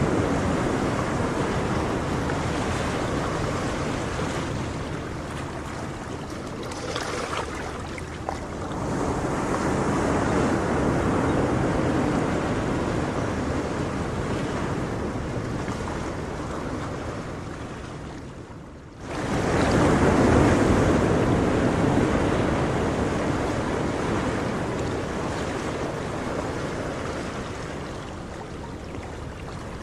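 Ocean surf washing in, a steady rush that swells and eases in slow waves. About two-thirds of the way through it dies away briefly, then surges back.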